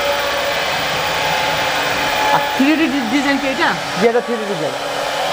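CNC router spindle running steadily as it carves a wooden door panel, giving a continuous high whirring noise.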